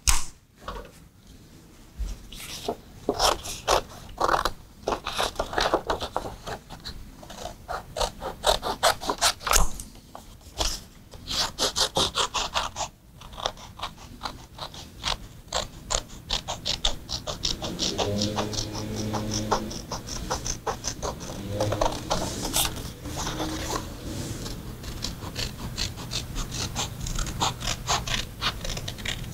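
Scissors snipping through printer paper, cutting out a paper wheel in many short snips that come quickly and densely in the second half.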